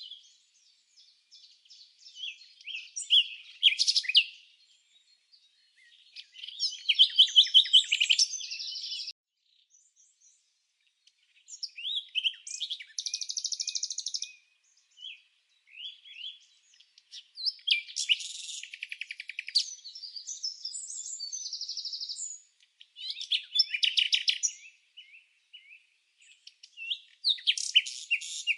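Songbird singing: phrases of rapid high chirps and trills, each a second or two long, separated by short pauses, the loudest phrase about a quarter of the way in.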